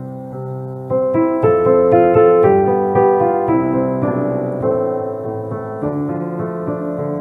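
Piano playing a slow hymn tune in chords, with a new, louder phrase beginning about a second in.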